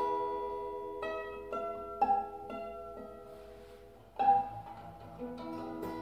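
Acoustic guitar strings plucked one note at a time on the short stretch marked off by an Allen wrench wedged under them as a makeshift bridge. The notes ring and die away, with a quiet gap just before the loudest pluck a little past the middle.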